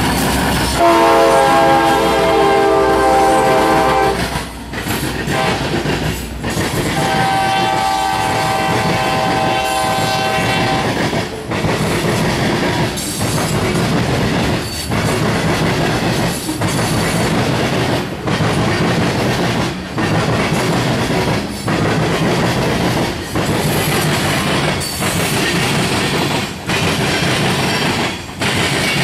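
A passing CSX freight train: the locomotive horn sounds two long chords in the first ten seconds, over the heavy rumble of the train. Then covered hopper cars roll past with a steady rhythmic clickety-clack of wheels over rail joints.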